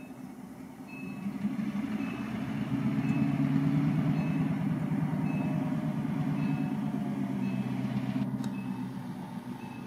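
Non-turbocharged two-stroke V16 diesel of an EMD GP38 locomotive running with a low, rapidly pulsing drone as it approaches, growing louder over the first few seconds and then holding steady. A faint short tone repeats about once a second over it.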